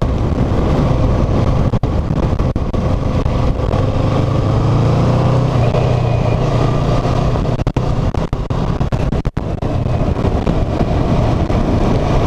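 Motorcycle engine running steadily at road speed, with rushing wind noise over the microphone. The engine note grows a little stronger about four seconds in, then settles back.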